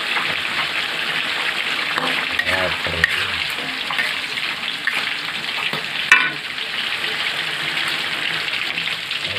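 Sliced jengkol in sweet soy and chili sauce sizzling in a wok while a metal spatula stirs and scrapes it, with small clicks. About six seconds in, the spatula knocks once sharply against the wok with a short ring.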